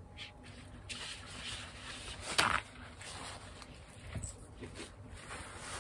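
Quiet rustling and handling noises from someone working with objects by hand, with one brief louder rustle about two and a half seconds in.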